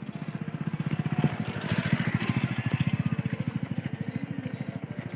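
A small engine running with a rapid, even putter.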